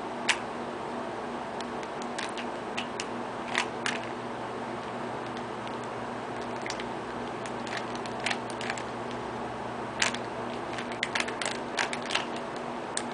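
Rubik's Cube being turned by hand: irregular plastic clicks and snaps as the layers are twisted, sometimes in quick runs of several clicks, over a steady low hum.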